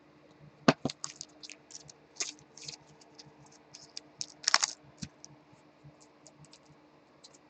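Irregular light clicks and taps, with a short scratchy rustle about four and a half seconds in.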